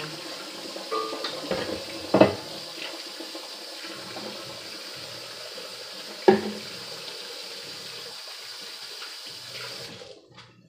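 Kitchen tap running steadily into a sink, with two sharp knocks about two and six seconds in; the water is turned off near the end.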